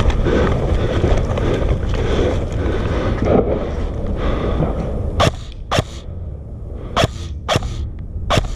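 Airsoft rifle firing five single shots over the last three and a half seconds, short sharp cracks coming roughly in pairs, after several seconds of steady rustling noise.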